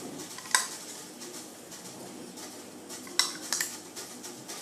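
Spoon clinking against a cup while oil is spooned in. A few sharp clinks: one about half a second in, then a cluster about three seconds in.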